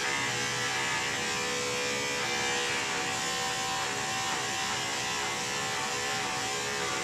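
Electric dog-grooming clipper running steadily, a constant motor buzz as it cuts through a curly coat.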